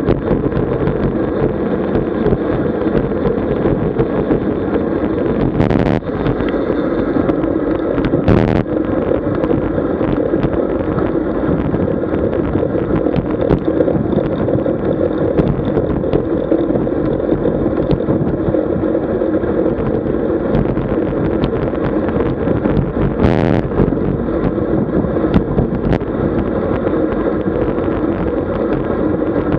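Steady rushing wind and road noise picked up by a camera mounted on a road bike while riding, with a few brief knocks, two in the first third and one past the middle.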